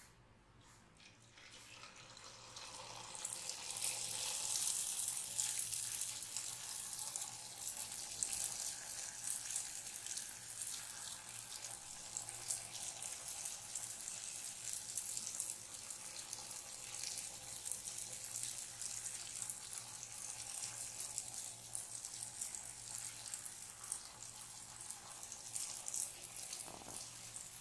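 Jalebi batter frying in hot oil in a kadhai: a dense sizzle with fine crackle that builds over the first few seconds as batter is piped in, then holds steady.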